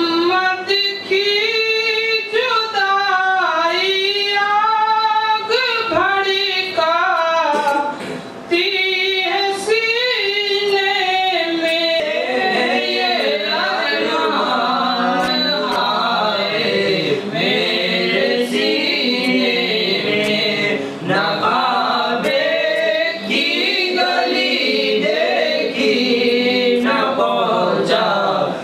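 Men singing without instruments: one voice leads in long gliding phrases, then from about twelve seconds in several voices sing together.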